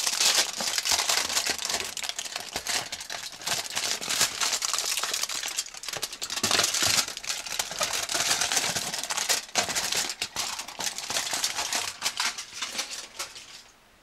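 Foil wrapper crinkling and crackling as it is peeled off a milk chocolate bar by hand: a dense run of small crackles that stops abruptly near the end.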